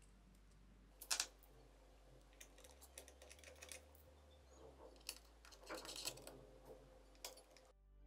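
Faint clicks and light clinks of small metal CPU-cooler mounting screws and brackets being handled and set on a motherboard. There is a sharper pair of clicks about a second in and a quick run of ticks around six seconds in.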